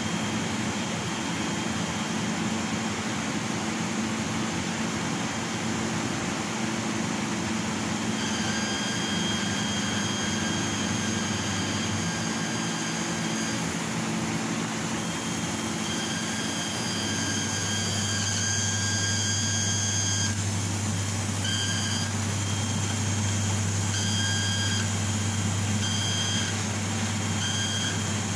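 CNC laser cutting machine running while it cuts: a steady mechanical drone, with a high whine from the head's drive motors that starts about a third of the way in and later breaks on and off in short stretches as the head moves. A low hum grows stronger about halfway through.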